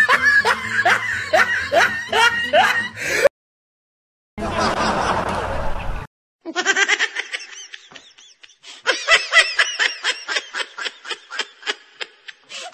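Laughter: a run of laughs for about the first three seconds, then after a brief break a short rush of noise, then a long stretch of rapid repeated laughing pulses.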